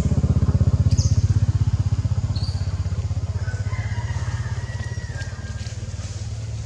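A motor vehicle engine running close by with a low, fast-pulsing drone, loudest about a second in and then slowly fading.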